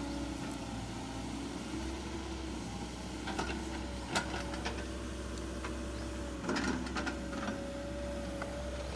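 Excavator's diesel engine running steadily, with a faint whine that wavers slightly in pitch, while digging foundation trenches; a few sharp knocks and clatters come in the middle and again a little past the two-thirds mark.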